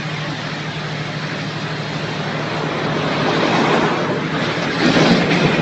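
Steady drone of a boat engine under a dense rushing of wind and water noise, which swells about three seconds in and is loudest near the end.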